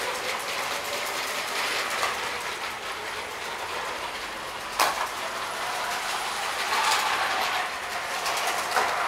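LEGO 12-volt model train motors whirring with a steady clicking rattle of wheels and gears on the track. A single sharp click about five seconds in.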